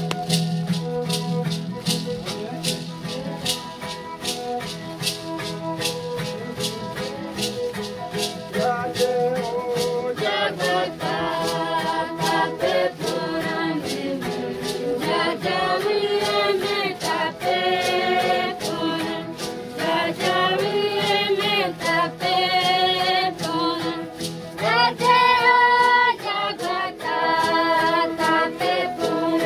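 Rattles shaken in a steady, fast beat, joined about ten seconds in by a group singing a Guarani chant in repeated phrases that grow louder toward the end.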